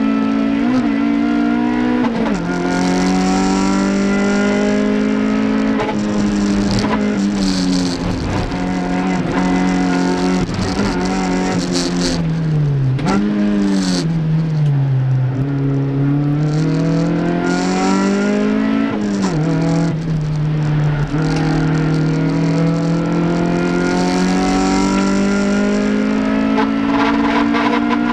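Toyota MR2 race car's engine heard on board at racing speed. The engine note climbs slowly and drops at each upshift, a few seconds apart. Around the middle the note falls away as the car slows, then climbs again.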